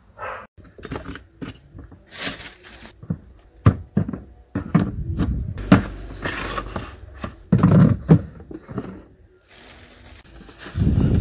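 Grocery items being handled and set on a cabinet shelf: a string of irregular knocks and clunks from bottles, cans and cartons, with bursts of rustling and scraping between them.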